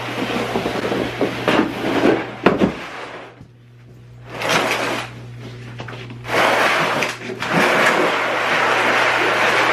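Plastic sled loaded with split firewood dragged over the threshold and across a concrete floor: scraping and sliding in stretches, with a few knocks in the first seconds and a short pause a little past the middle.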